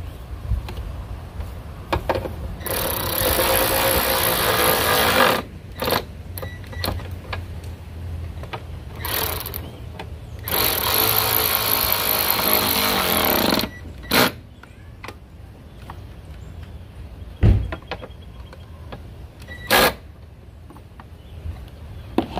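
Ryobi cordless power driver running the mounting bolts of a replacement windshield wiper motor into the cowl. It runs in two long bursts of about three seconds each, with a few short blips around them. A single sharp knock comes later, the loudest single sound.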